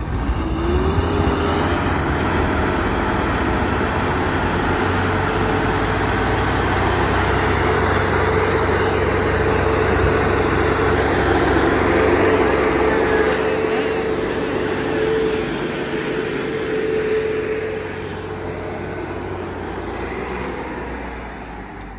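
Two Massey Ferguson diesel tractors, a 385 and a 360, running hard under heavy load: the 385 is towing the 360 and its fully loaded trolley out of the mud on a chain. A loud, steady engine drone whose pitch rises about a second in, easing off in the last few seconds.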